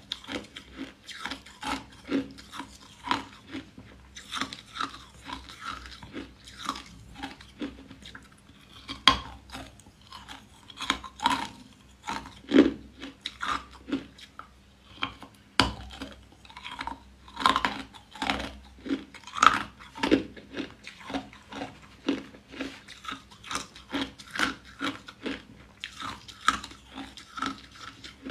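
Frozen violet ice bars being bitten and chewed close to the microphone: a steady run of sharp, crisp ice crunches, about two a second.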